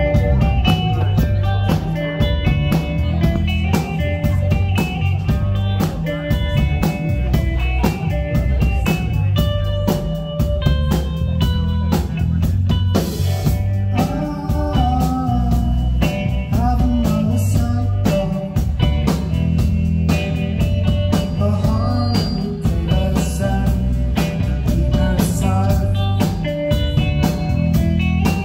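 Live rock band playing: electric guitar over bass guitar and a steady drum beat.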